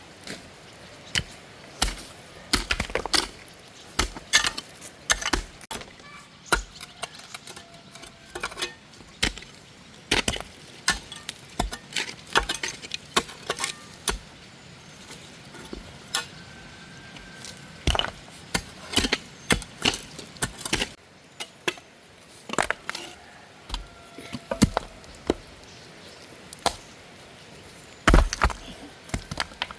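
Irregular chopping strikes of a hand digging tool biting into the ground, about one or two a second with short pauses.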